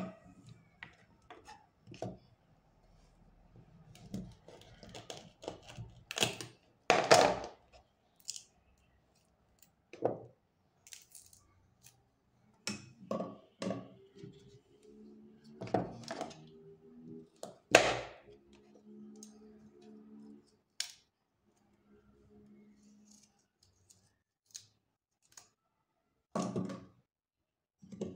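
Irregular knocks, taps and clicks of cassava being cut and handled: a kitchen knife and cassava pieces set down and picked up on a plastic cutting board, with quiet gaps between.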